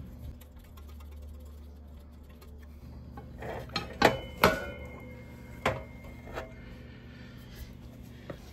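Several sharp metallic clinks of hand tools and a small screw against metal, each with a brief ring, as the speedometer cable screw is put back in. The two loudest come close together about four seconds in. A steady low hum runs underneath.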